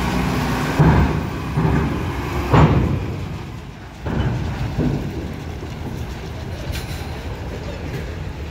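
Loaded truck rolling across a steel ferry ramp: a low engine rumble with a series of heavy clanks as its wheels cross the ramp plates, five knocks in the first five seconds, then fading to a steadier, quieter rumble.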